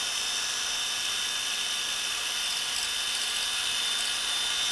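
Cordless drill running at a steady speed, spinning a small brass rivet in its chuck while sandpaper is held against it to polish the rivet.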